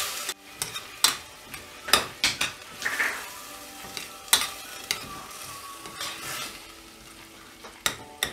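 Chicken, onion and spices sizzling in an open pressure cooker while a metal spoon stirs them, scraping and knocking against the pot every second or so.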